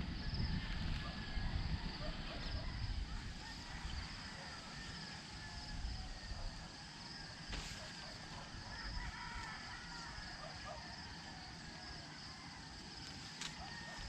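Quiet rural outdoor ambience: a steady high-pitched hum with faint chicken calls and low rumble, and two faint clicks in the second half.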